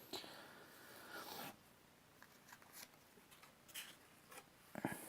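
Faint rustling and a few light clicks of a trading card and its plastic packaging being handled, a little louder about a second in and again near the end.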